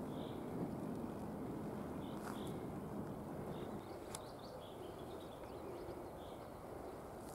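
Small birds chirping in woodland: short high calls every second or two, with a quick run of notes about halfway through, over faint outdoor background and a couple of sharp clicks.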